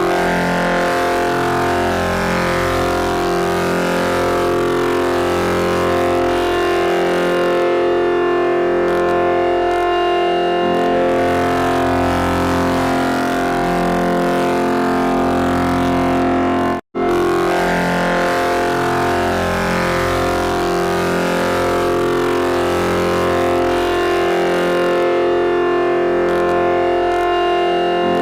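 Loud electronic sound effect: a dense drone of many sustained, layered tones. It cuts out for an instant about 17 seconds in and then repeats from the start, as a loop.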